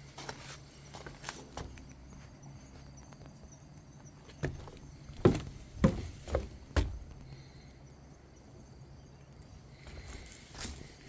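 Footsteps on a forest path: a run of about five sharp, hard knocks near the middle, over a low steady background.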